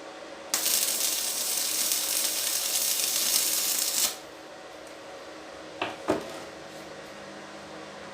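A loud hiss that starts sharply, lasts about three and a half seconds and cuts off suddenly, followed about two seconds later by two short clicks.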